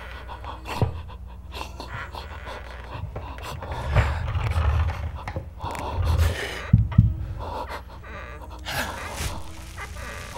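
Heavy panting breaths with gasps, over a steady low rumble, with two dull thumps in quick succession past the middle.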